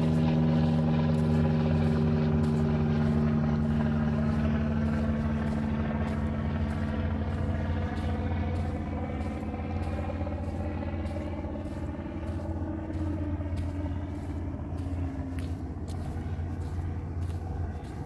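An unseen engine hums steadily, with a set of tones that slowly fall in pitch as it gradually fades away.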